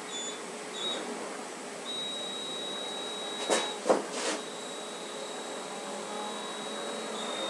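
Handheld electric blower running, blowing air into a charcoal grill to fan the coals: a steady rushing noise with a thin high whine that settles in about two seconds in. A few sharp knocks around the middle.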